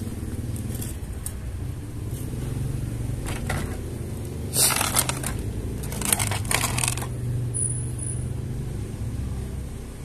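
Plastic toy train track and its plastic packaging tray being handled, with a few short clattering rattles about halfway through. A steady low hum of road traffic runs underneath.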